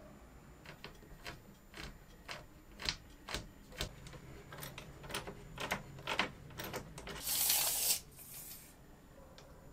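A run of light plastic and metal clicks and knocks as the suspension parts of a bare RC car chassis are handled. Near the end a steel tape measure's blade rattles out for about a second.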